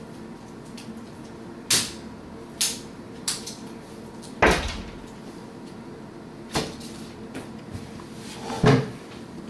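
A series of six sharp knocks or bangs at irregular intervals, the kind made by cupboard doors or drawers being shut, the loudest about four and a half seconds in and near the end, over a faint steady hum.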